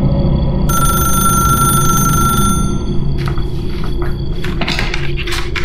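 Rotary telephone bell ringing once, a ring of about two seconds, then a quick run of clicks and clatter as the handset is lifted, over a steady low hum.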